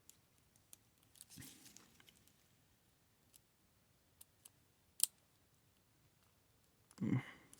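Lock pick and tension wrench working inside a greasy Yale wafer tumbler padlock: faint, scattered small metal clicks and scrapes, with one sharper click about five seconds in.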